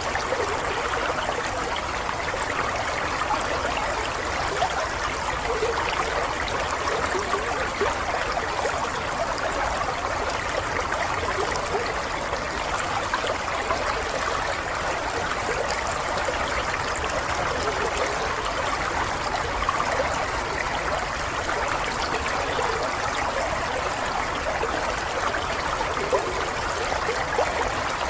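Running water flowing steadily, a continuous babble of many small gurgles and splashes.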